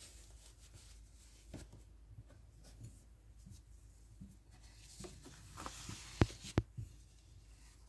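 Gloved hands handling paper scratch-off lottery tickets on a wooden table: faint paper rustling and light taps, with two sharper clicks about six seconds in.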